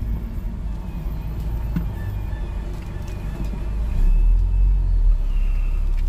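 Car driving heard from inside its cabin: a steady low engine and road rumble that grows louder about four seconds in.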